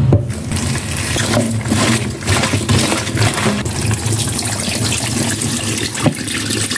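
Kitchen tap turned on and running water splashing through a plastic bowl of chopped cabbage, with the rinse water poured off into a stainless steel sink, as the cabbage is washed. The water starts suddenly and runs steadily.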